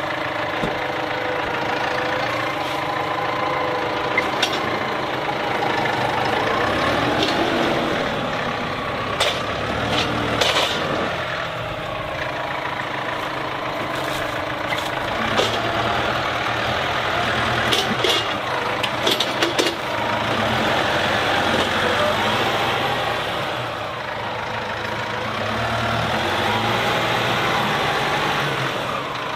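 Massey Ferguson 5712 S tractor engine running, revving up twice as the front loader works, with several sharp metallic clanks partway through.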